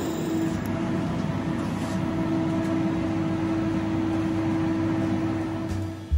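Steady whirring hum of the laser tattoo-removal equipment's cooling fan, with a constant low tone.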